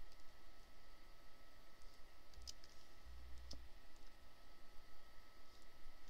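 Computer mouse clicking a few times, sparse single clicks that place the points of a lasso selection one by one, the two clearest in the middle. A faint steady high hum lies under them.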